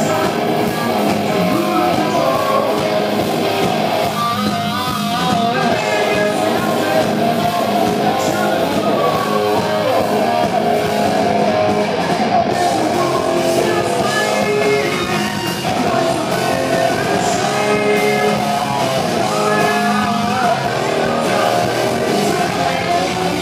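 Live hard rock band playing: electric guitar and bass guitar over drums, loud and continuous.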